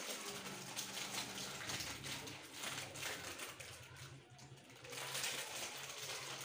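Plastic snack packets and sweet wrappers crinkling and rustling as they are torn open and handled, with crunching of crisps.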